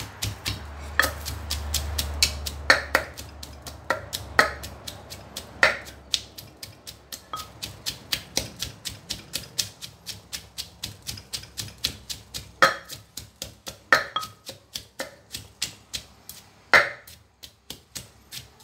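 Wooden pestle pounding shredded carrot and long beans in a terracotta som tum mortar: quick, regular knocks about three a second, with a few louder strikes scattered through.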